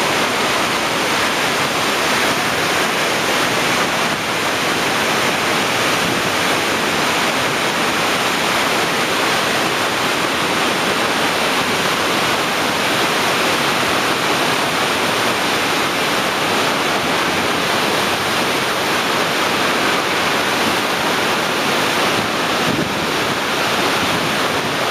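Steady roar of Iguazu Falls and the churning whitewater below it, a constant rushing noise without letup.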